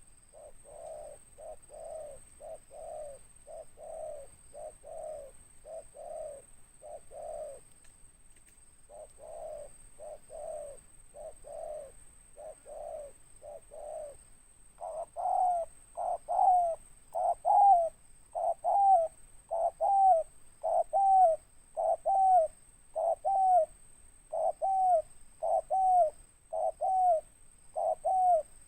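Spotted dove cooing in a long, even series of short notes. The notes are softer at first, with a brief pause, and grow louder from about halfway, each one rising and then falling in pitch.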